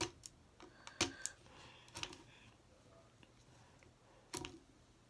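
Hard plastic Mini Brands capsule ball handled with the fingers: a handful of sharp, irregular clicks and taps as fingernails work at the shell to pry it open, the loudest about a second in and another near the end.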